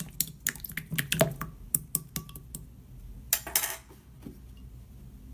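Clear glossy slime being stirred with a plastic spoon in a glass bowl: a quick run of small sticky clicks and squelches, with a louder crackling squish about three and a half seconds in.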